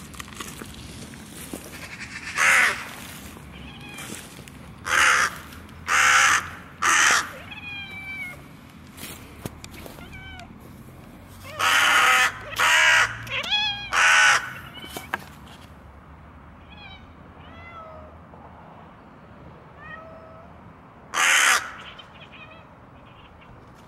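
Hooded crow cawing: about eight harsh caws, several in quick succession around the middle and a last one near the end. Between them a kitten gives short, thin chirping meows.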